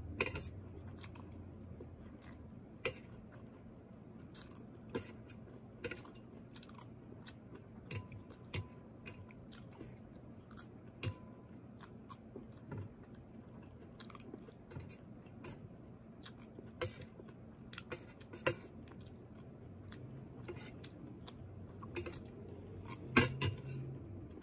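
A person chewing broccoli close to the microphone: irregular wet mouth clicks and chewing noises, with a few louder clicks near the end.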